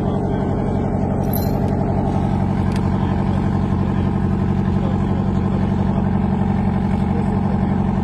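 A heavy engine running steadily at idle: a loud, even low hum with a fast regular pulse and no revving.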